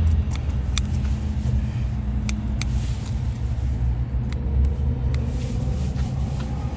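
Scissors snipping loose threads off a torn vinyl seat-back pocket: several short, sharp clicks spread irregularly. They sit over a steady low rumble.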